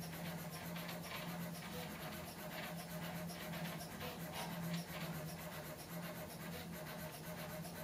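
HyperCube 3D printer printing: a steady low stepper-motor hum that swells and fades as the print head changes moves, with faint scratchy ticking over it.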